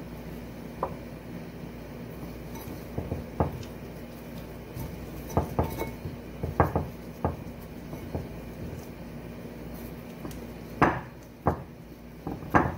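Irregular light knocks and clinks as vegetable slices and chicken pieces are pressed by hand into a glazed ceramic baking dish, with a cluster of louder knocks near the end. A faint steady hum runs underneath.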